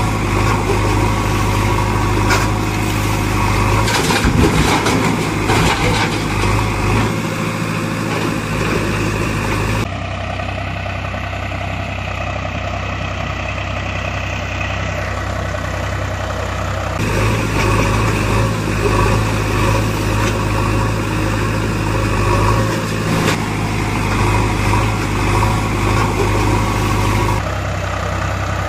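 An engine idling steadily, with a strong low hum. The sound changes abruptly about ten seconds in, again about seven seconds later, and once more near the end.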